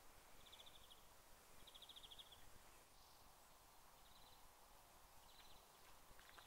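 Near silence: faint outdoor ambience with short, high-pitched trills of about half a second each, repeating every second or so.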